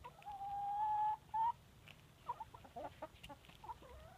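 Chickens calling as they are fed wheat: one long steady call near the start, a short rising note right after it, then a run of short, scattered clucks.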